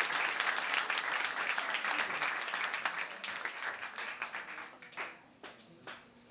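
Audience applauding, the clapping thinning out over the last few seconds until only a few scattered claps are left.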